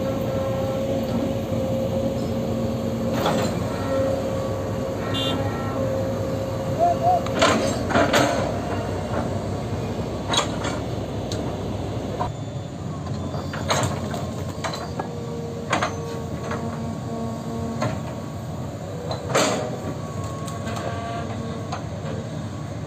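Hydraulic excavators working: a steady engine drone with a held whine, broken by scattered sharp metallic clanks and knocks.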